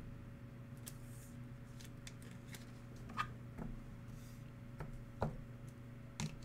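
Light clicks and taps of plastic card holders and cards being handled, with a few sharper clicks about three and five seconds in, over a steady low hum.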